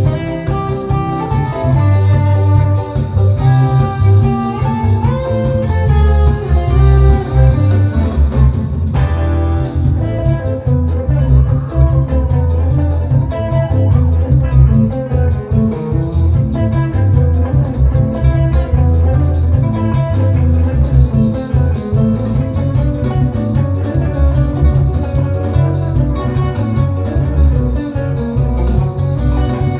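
Semi-hollow electric guitar played continuously, picked notes and chords over a deep, steady low end, with bent notes about halfway through.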